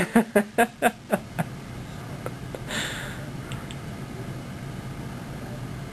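Laughter: about six quick ha-ha pulses, fading out over the first second and a half. A short breathy burst follows about three seconds in, then only a steady room hum.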